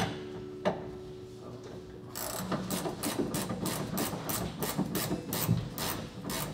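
Hand ratchet wrench being worked back and forth, starting about two seconds in: a run of quick rasping clicks, about three strokes a second, while a fastener is turned, most likely loosening hardware on the steering-box block that has to come off.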